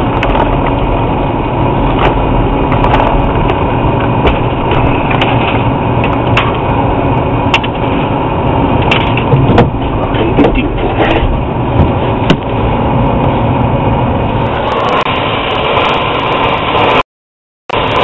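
Brazing torch flame rushing steadily as it heats a copper refrigerant line on a reversing valve, with scattered sharp cracks and pops.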